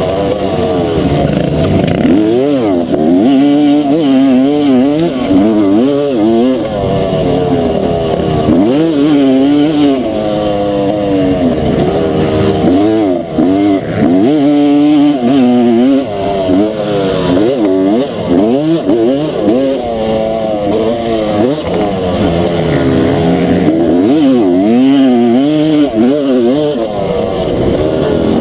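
Honda CR250 two-stroke single-cylinder motocross engine heard from on board the bike, revving up and down over and over as the rider works the throttle around the track, its pitch rising and falling continually.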